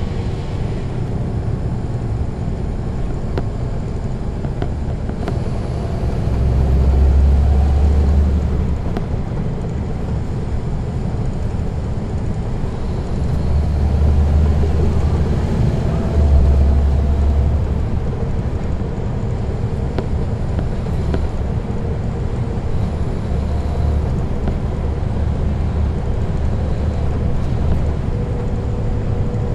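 Caterpillar C13 ACERT diesel engine of a NABI 40-foot transit bus running under way, heard from the rear seats inside the bus: a steady low rumble that swells louder in several stretches, about six seconds in and again around the middle, as the engine pulls harder.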